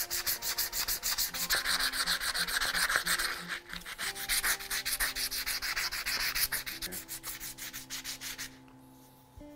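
Hand-sanding the English oak handle scales of a screwdriver on a sheet of fine, final-grit sandpaper: quick, even back-and-forth scraping strokes, several a second, which stop about a second before the end.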